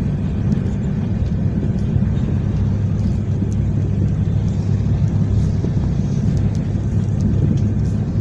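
A motorboat running steadily at speed: a constant low rumble of engine and rushing water churned along the hull.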